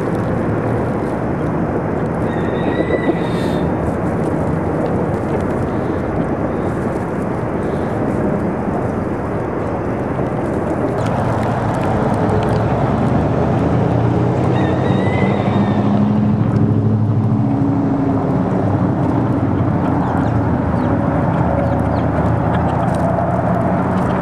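Steady street noise from traffic, with a vehicle engine's drone coming in about halfway through. A bird gives two short rising chirps, one near the start and one midway.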